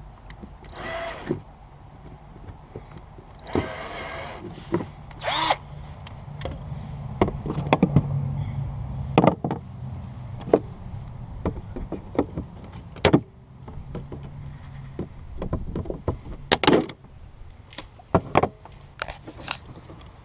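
Cordless drill run in several short bursts, drilling out the rivets that hold the old bilge pump's mounting bracket, with scattered sharp clicks and knocks from the work.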